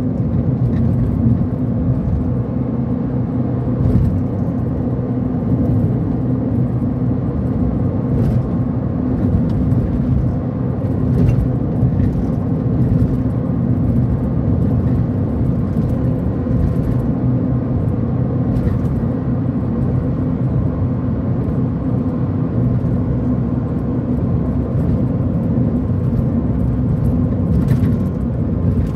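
Car driving at a steady speed, heard from inside the cabin: a steady low rumble of engine and tyres on the road, with a few faint ticks now and then.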